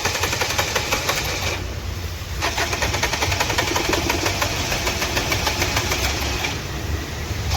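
Nissan Terrano's four-cylinder diesel engine running with a fast, even knocking clatter and misfiring, the sign of faulty injectors, here number 2 and number 3. The clatter briefly softens twice.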